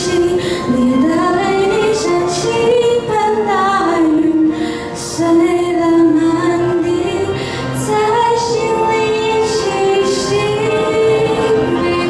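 Young female voices singing a melody with long held notes into handheld microphones, amplified through a hall's sound system.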